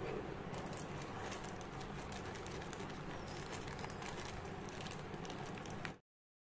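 White plastic mailer bag being handled and opened, its polythene giving many short crackles over a steady low background rumble. The sound cuts off abruptly near the end.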